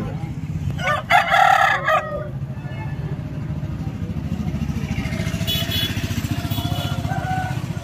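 Roosters crowing: a loud crow about a second in, lasting about a second, and a fainter, longer crow from about five seconds in. Under the crowing, an engine idles with a steady low pulse.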